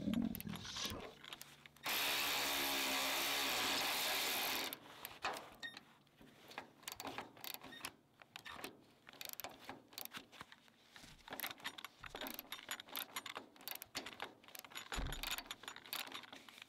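Milwaukee M12 3/8-inch cordless ratchet motor running steadily for about three seconds as it drives a flange bolt, then stopping. Irregular clicking and small metallic knocks of the ratchet head and the wrench on the nut fill the rest.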